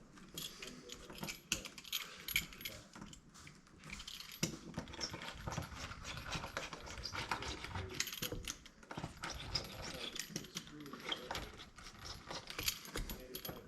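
Screen spline being rolled into a window screen frame's channel with a spline roller, pressing the mesh in. A steady run of irregular small clicks and scrapes.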